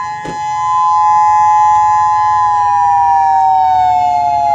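Outdoor civil defense warning siren sounding Hawaii's nuclear attack warning test: a loud two-note chord with many overtones, held steady and then sliding slowly down in pitch from a little past the middle.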